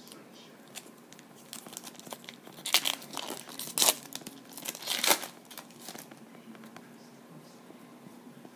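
Foil wrapper of a 2011 Bowman Draft Picks and Prospects card pack being torn open and crinkled, in a few rough tearing rustles, loudest about three and five seconds in.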